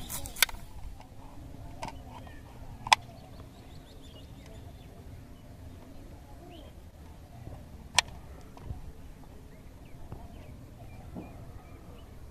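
A knife slicing through a firm green guava, with a few sharp clicks as the blade cuts through. The two loudest clicks come about three and eight seconds in, over a faint open-air background.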